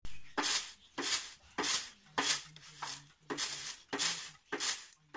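Repeated scraping and rustling strokes, a little under two a second, as dried crop on a stone floor is scooped up with a metal pan.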